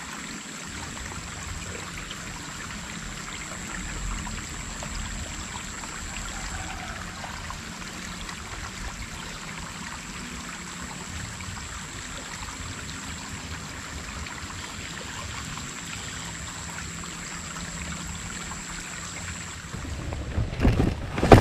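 Shallow stream water running over stones, a steady hiss, with a faint steady high tone above it that stops near the end. Near the end come loud rumbles and knocks of handling noise on the microphone.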